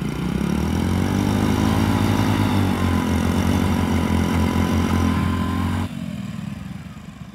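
Small single-cylinder commuter motorcycle engine idling steadily with an even low pulse. About six seconds in the sound drops sharply, leaving a quieter idle.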